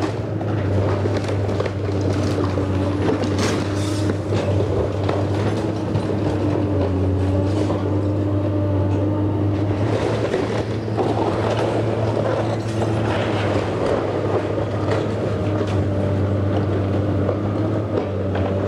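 Komatsu PC270LC hydraulic excavator's diesel engine running steadily as it demolishes a wood-frame house, with repeated cracks and crashes of splintering timber and falling debris as the bucket tears into the walls and roof.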